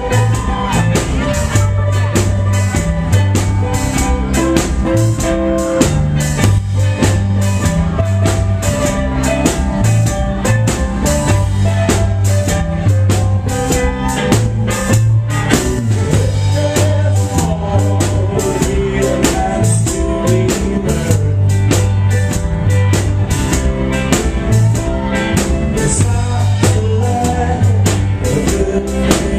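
Live rock band playing loud: electric guitars over a drum kit keeping a steady beat, with a strong bass line.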